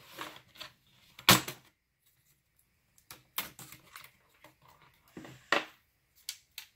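Plastic case cover of a Dell Inspiron 15 5547 laptop being pried off the chassis, its clips clicking and snapping loose: a scattered run of sharp clicks and knocks, loudest about a second in and again about five and a half seconds in.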